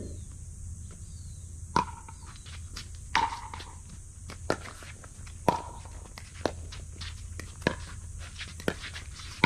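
Pickleball paddles striking the hollow plastic ball in a rally: a string of sharp pops, about one a second, some with a short hollow ring.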